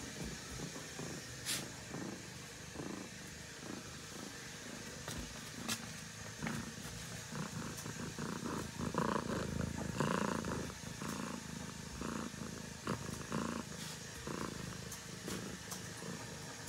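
Domestic cat purring in a steady rhythm, growing louder about nine to ten seconds in.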